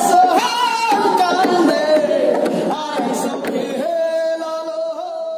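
A woman singing without accompaniment, her melody bending through ornamented turns. Sharp taps sound under the first few seconds, then about four seconds in she holds one long, steady note.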